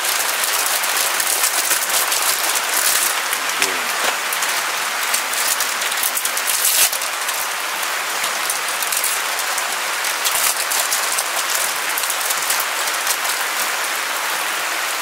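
Rain falling on a flysheet tarp overhead, a steady hiss of many small drops. Plastic wrapper crinkles a few times as a packet of crackers is opened.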